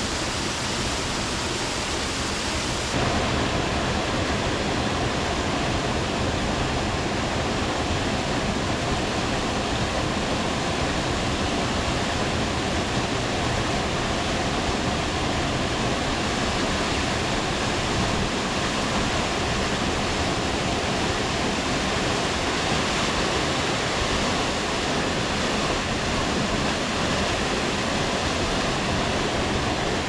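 Waterfall pouring into a rock plunge pool: a steady, dense rush of falling water, getting slightly louder about three seconds in.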